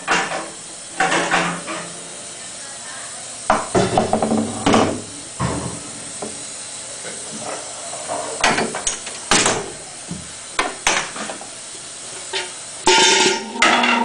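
Metal-framed chairs being handled and piled up: irregular clanks, knocks and rattles, with some rustling, over a steady hiss.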